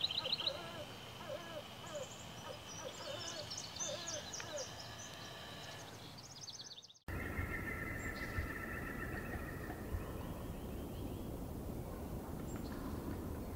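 Outdoor birdsong: several songbirds trilling and chirping, with a run of short, low, evenly spaced calls underneath. After an abrupt cut about seven seconds in, wind rumbles on the microphone while a bird trills.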